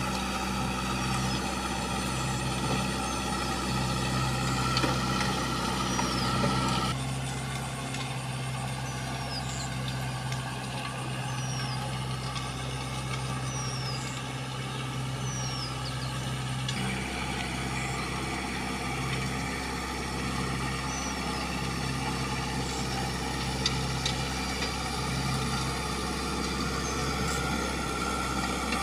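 Farm tractor's diesel engine running steadily under load as it plows a flooded paddy field, dropping quieter for about ten seconds in the middle as it moves further off.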